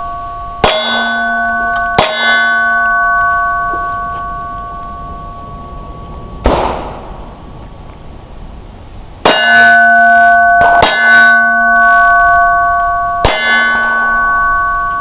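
Six slow, single 9mm shots from a Glock 19 pistol, spaced one to three seconds apart. Most are followed by a steel target ringing on a few steady tones that carry on between shots. The fourth shot, about six and a half seconds in, brings no fresh ring.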